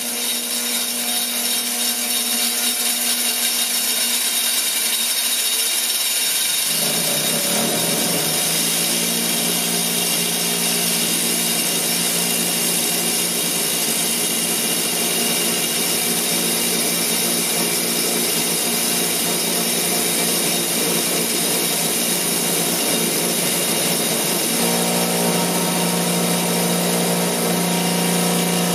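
Six-inch bench grinder with a new grinding wheel and a new wire wheel, switched on as the sound begins and running up to speed, then running steadily for its run-in: a steady motor hum under a hiss from the spinning wheels. The hum's tone shifts about seven seconds in and again near the end.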